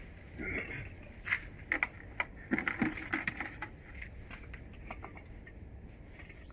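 Scattered light clicks and knocks, with no motor running.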